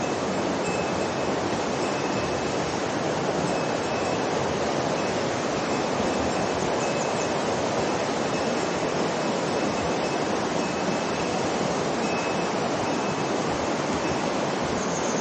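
Steady, even rush of a mountain river's water flowing over rocks.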